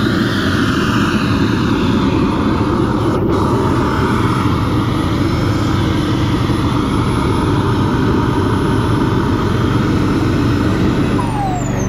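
Kingtech K102G4+ model jet turbine running at idle on the ground with a steady rushing noise and a thin high whine. Near the end the whine slides down in pitch and the noise eases as the turbine is shut down and spools down.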